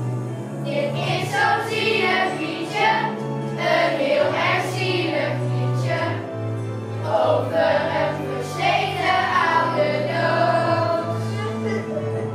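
A group of children singing a song together in unison over instrumental accompaniment with sustained bass notes, the singing starting about half a second in.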